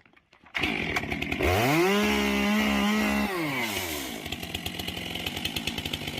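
Stihl chainsaw starting on a single pull about half a second in, revved up to high speed for a couple of seconds, then dropping back to a pulsing idle.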